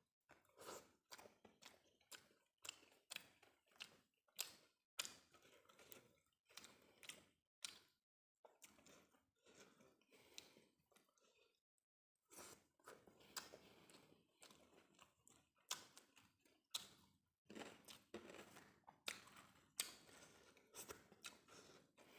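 Close-up chewing of a handful of steamed rice and sausage: quick wet clicking mouth sounds, several a second. They pause briefly twice, before the next mouthful.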